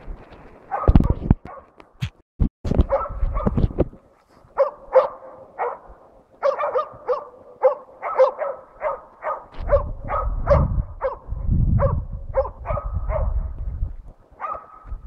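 Jämthund (Swedish elkhound) barking steadily at a standing moose, short barks at about two a second: the stationary bay bark that tells the hunter the moose is held at stand. Wind rumbles on the microphone in gusts early on and again in the second half.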